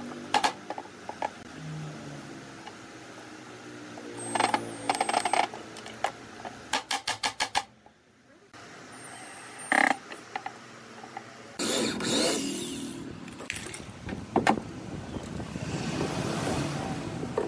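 Hammer tapping a metal handle into a carved hardwood cabinet door: a quick run of light taps about halfway through, single sharper knocks later, and scraping as the wood is handled.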